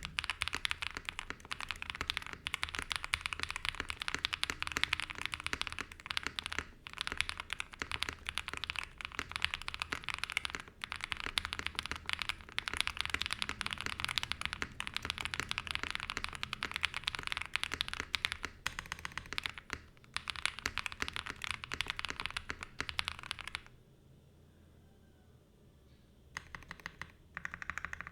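Fast, continuous typing on a CIY GAS67 gasket-mounted mechanical keyboard with lubed Akko Radiant Red switches, Akko Silent PBT keycaps, a polycarbonate plate with silicone insert and a polyfill-packed plastic case. The typing stops for about three seconds near the end, then starts again.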